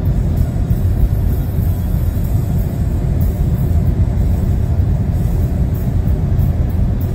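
Inside the cabin of a Volkswagen Golf 8 with a 999 cc three-cylinder petrol mild-hybrid engine at about 205 km/h: a steady, loud low rumble of engine, road and wind. The engine runs near 5,000 rpm and the car is still gaining speed slowly.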